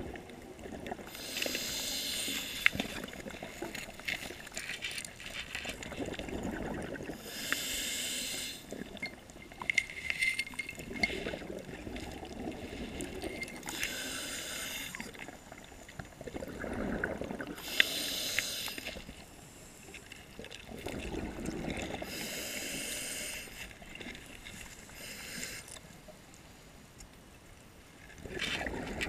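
Scuba diver breathing through a regulator underwater. A hiss on each inhalation alternates with the bubbling rumble of each exhalation, about one breath every five seconds.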